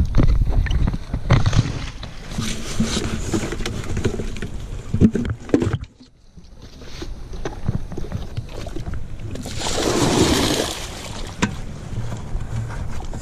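A plastic bucket of water knocking and sloshing as it is handled, then water pouring and splashing into a creek about ten seconds in as the bucket is emptied to release stocked trout.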